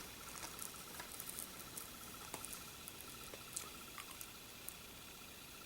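Faint scattered light clicks and ticks of DVD cases being handled, over a faint steady high-pitched tone.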